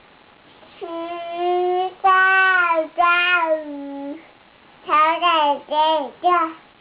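A toddler still learning to talk, singing: three long held notes starting about a second in, then three short, quicker notes near the end.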